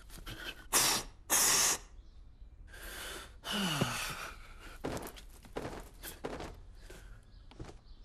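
Two loud, short puffs of breath blown hard, as in mouth-to-mouth resuscitation given to a small bird. About three seconds in comes a longer breathy vocal sound that falls in pitch, followed by a few light clicks.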